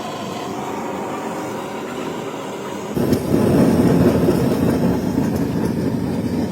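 A heavy engine runs steadily, then about three seconds in it jumps abruptly to a louder, rougher running sound.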